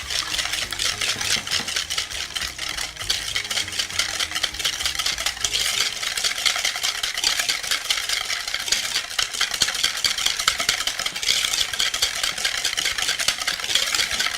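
Eggs, egg yolks and sugar being beaten by hand in a bowl: a fast, steady clatter of the utensil against the bowl, which keeps going without a pause.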